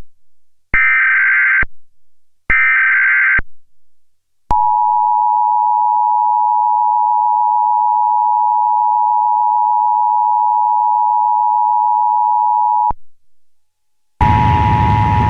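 Emergency Alert System test broadcast: two SAME header data bursts, harsh buzzy warbles about a second each, then the EAS two-tone attention signal (853 and 960 Hz together) held steady for about eight seconds. Near the end a hissy, humming broadcast feed cuts in.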